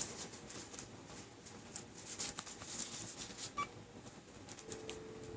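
A phone being tapped to place a call: faint clicks and taps, a short beep about three and a half seconds in, then a steady tone near the end as the call starts to ring.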